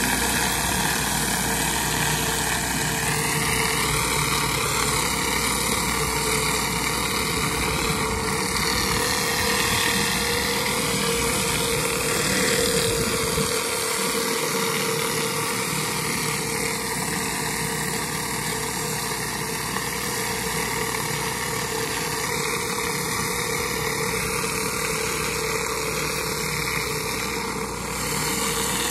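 Pressure washer's engine running steadily under load while a spinning surface cleaner blasts pressurized water onto paver stones, a continuous hiss of spray over the engine's steady drone.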